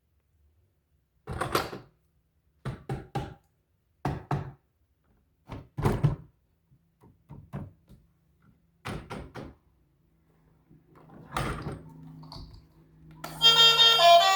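A series of short thunks and knocks in separate clusters, about a second or so apart; music with a steady melody starts near the end.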